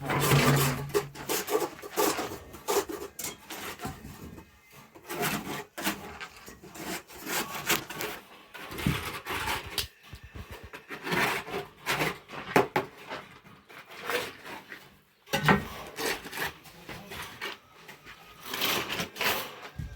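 Repeated scraping and rubbing strokes, irregular in pace, with short pauses between runs of strokes.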